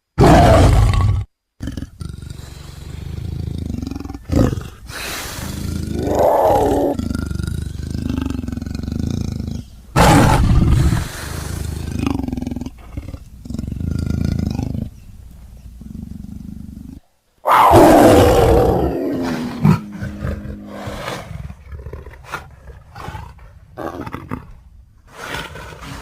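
A string of big-cat roar and growl sound effects, spliced one after another with abrupt cuts and short gaps between them. The loudest roars come right at the start, about ten seconds in, and about eighteen seconds in, where the roar falls in pitch as it fades.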